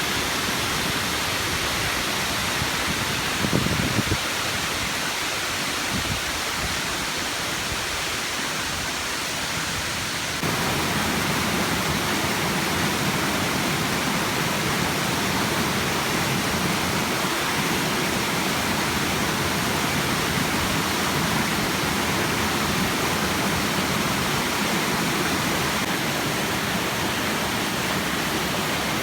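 Waterfall: falling water rushing in a steady, even hiss. A few brief low bumps come a few seconds in, and about ten seconds in the sound changes abruptly and becomes fuller and deeper.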